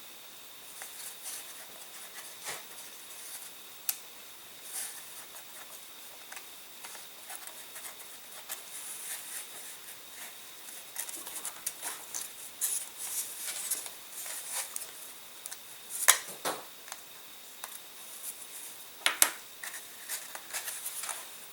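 Small hand-handling noises: light scraping, rustling and tapping of small model-aircraft parts being worked and fitted together, with scattered clicks. Two sharp clicks in the last third are the loudest sounds.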